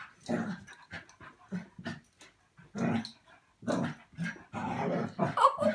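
Two small terriers, a West Highland white terrier and a black terrier, play-fighting, giving short growls and whines in irregular bursts, loudest near the end.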